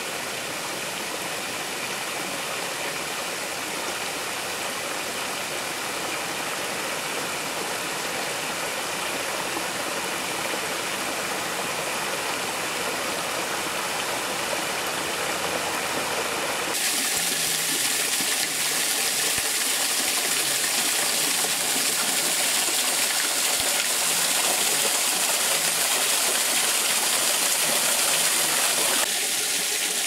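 Shallow spring stream running over travertine rock, a steady rush of water. About halfway through it turns louder and hissier: a close spout of spring water pouring out of a hole in the travertine.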